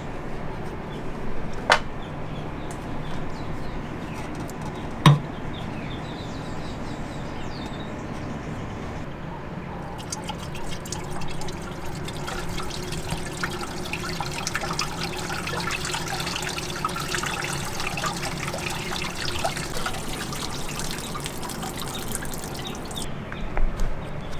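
Water running, dripping and splashing as a DKW Auto Union 1000S engine's cooling passages are flushed out to wash rust particles from the water jacket. Two sharp clicks in the first few seconds, and the water runs heavier from about ten seconds in until near the end.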